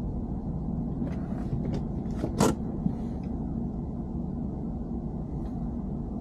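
BMW E90 3 Series on the move, a steady low rumble, with a few brief noises about a second in and a short, sharp, louder one about two and a half seconds in.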